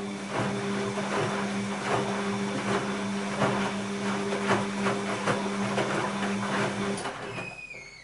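Bosch WAB28220 front-loading washing machine turning its drum in the wash phase: a steady motor hum with laundry sloshing and splashing in the water. The hum cuts off about seven seconds in, and a falling whine follows as the drum comes to rest.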